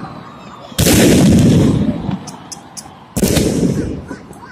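Aerial fireworks shells bursting: two loud booms, about a second in and again a little after three seconds, each fading away over about a second, with faint crackling between them.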